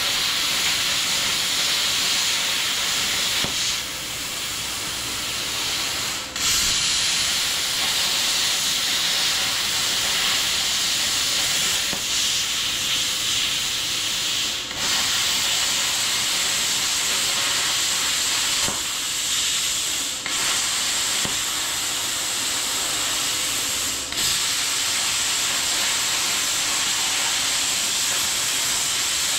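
Plasma cutter running with a loud, steady hiss while cutting sheet metal, cutting out briefly about half a dozen times before starting again.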